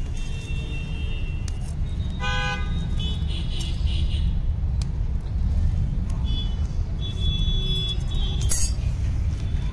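Steady low rumble, with a brief horn-like toot about two seconds in and a sharp click near the end.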